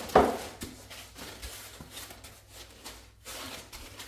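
Unboxing handling noise: a plastic packaging bag crinkling and a cardboard box and foam packing insert being moved about, with a loud knock just after the start.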